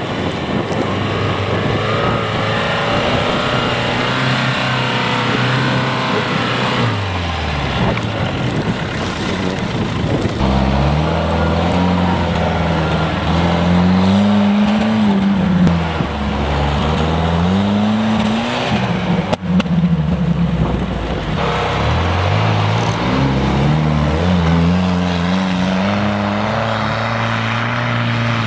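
Off-road SUV engine revving hard under load. Its pitch rises and falls over and over as the throttle is worked, dropping briefly twice, then held high near the end.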